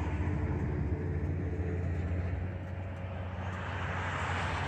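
Motorcycle engine running steadily on the move, with wind and road noise on the microphone that grows louder near the end.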